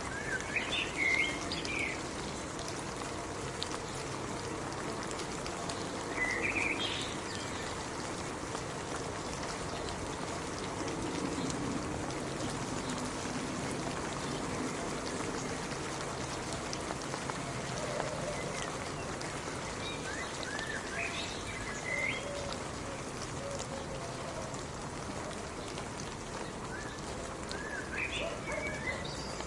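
Steady rain falling, an even hiss of drops. A bird calls over it in short chirping phrases four times: at the start, about six seconds in, around twenty seconds in, and near the end.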